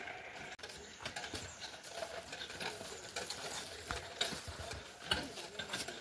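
Metal prayer wheels turning on their spindles, giving faint, irregular clicks and rattles.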